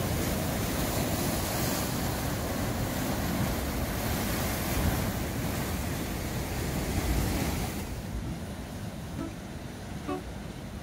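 Ocean surf breaking and churning against a rocky cliff shoreline, with wind on the microphone. About eight seconds in the roar drops away and a few soft pitched notes of music begin.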